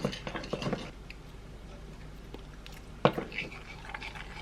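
Quiet sounds of tasting peanut sauce: soft mouth and spoon noises, with one sharp click about three seconds in.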